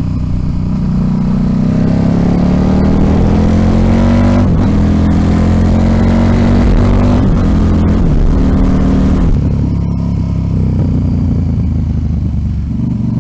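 KTM RC8 1190's V-twin engine pulling hard up through the gears. Its note climbs, then drops at each upshift, about four and a half, seven and eight seconds in. After about nine seconds it backs off to a lower, steadier note.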